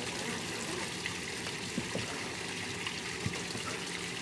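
Steady rush of running water with a faint steady hum under it, and a couple of small ticks.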